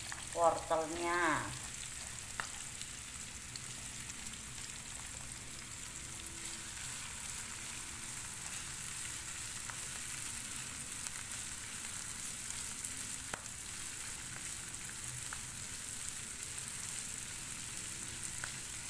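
Julienned carrots, onion and spice paste sizzling in hot oil in a frying pan as they are stirred with a wooden spatula. There is a steady hiss, with a few light taps of the spatula on the pan.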